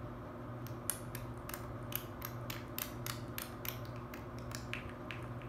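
A quick run of light clicks, about four a second, starting about a second in and stopping near the end, over a faint steady hum.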